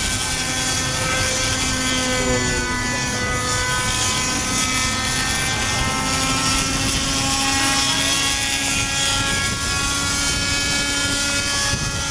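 Raptor RC helicopter's nitro glow engine and rotors running in flight, a steady whine with small shifts in pitch. The engine is still set very rich.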